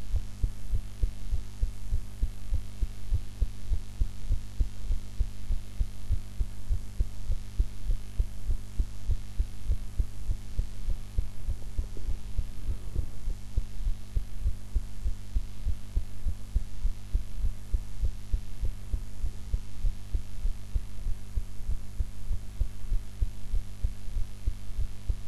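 A woman's heartbeat recorded close up: a steady, regular run of low thumps over a constant low hum.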